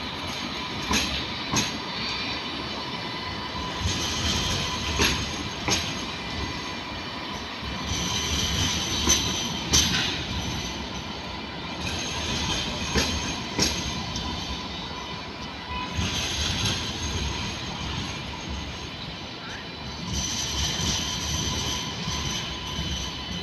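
Alstom Citadis light-rail tram rolling slowly past, its steel wheels clicking sharply in pairs every few seconds on the rails. A steady high hum and several stretches of high wheel squeal run over the rolling noise.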